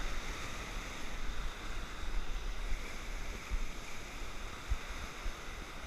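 Whitewater rapids rushing steadily around an inflatable raft, with a few short low thumps on the microphone.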